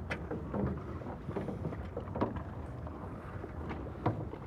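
A yacht's auxiliary engine running with a low, steady rumble, with wind on the microphone. Three sharp knocks from the boat's deck gear come about a second apart near the start, in the middle and near the end.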